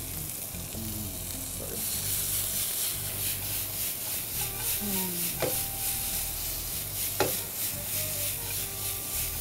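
Capsicum and carrot strips sizzling in hot oil in a frying pan, getting louder about two seconds in as the pan is tossed. The sizzle swells and fades a few times a second with each toss. Two sharp knocks come near the middle, under two seconds apart.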